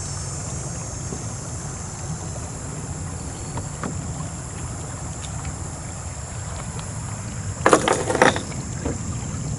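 Wind rumbling on the microphone over a steady high insect drone, with a short rattle of knocks about eight seconds in, like gear knocking against a kayak.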